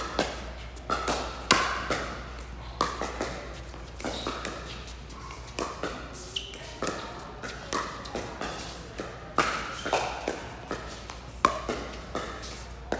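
Pickleball paddles striking a hard plastic pickleball in a doubles rally: a string of sharp pops, roughly one a second, each echoing briefly in a large indoor hall.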